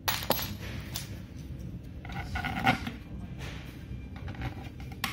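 Hand-assembly handling noise of a particleboard drawer: sharp clicks and knocks of the panels and metal bolts, with a short pitched scrape about two seconds in as a bolt is worked into the board.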